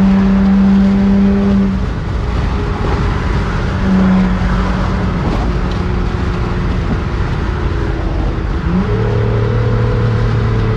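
Nissan Altima's engine droning steadily with tyre and road noise at highway speed, heard from inside the cabin. The engine note changes about nine seconds in.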